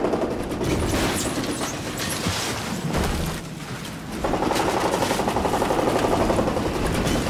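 Rapid mechanical rattling, a fast run of hard repeated strikes. It weakens a little past the midpoint, then comes back just as strong.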